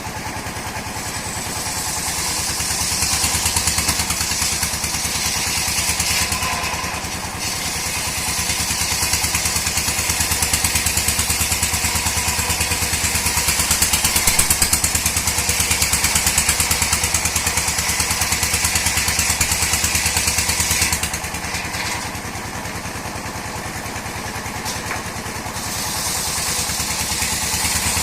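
An old wood-cutting sawmill runs steadily, its engine chugging throughout while the saw cuts dried mahogany. A high hiss of sawing comes and goes: from about a second in to six seconds, again for a long cut until about three quarters through, and again near the end, easing off between cuts.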